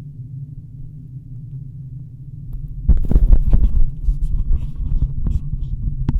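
Recorded airplane-cabin noise playing as a steady low hum, heard through binaural headset microphones under the Soundcore Life Q20 headphones with noise cancellation off. About three seconds in, loud rubbing and knocking handling noise on the microphones takes over, and a sharp click comes near the end.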